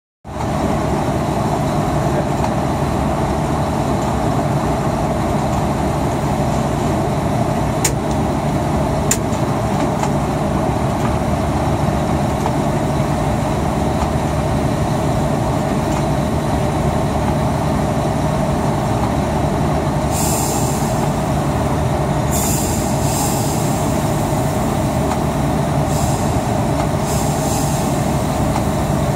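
Steady running noise inside the cab of a diesel locomotive under way: a low engine drone mixed with wheels rumbling on the rails. Two sharp clicks come about eight and nine seconds in, and several short high-pitched bursts come and go in the last third.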